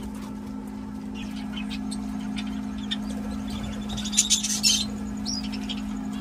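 Small aviary birds chirping and squeaking in short scattered calls, busiest about four seconds in, over a steady low hum.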